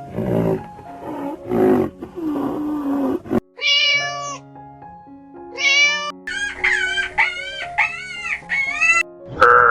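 Kitten mewing: two drawn-out high mews, then a quick run of about six short mews, over background music. A few lower calls come before them in the first three seconds, and a different animal call starts right at the end.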